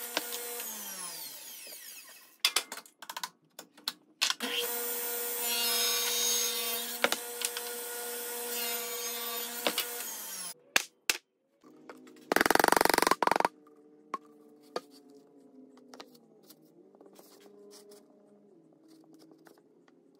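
Delta 10-inch contractor table saw running with no load, then switched off and winding down in pitch over a couple of seconds. A few sharp knocks follow. The saw then runs steadily again for about six seconds and stops abruptly. A loud rush of noise lasting about a second comes after, then only faint low sounds.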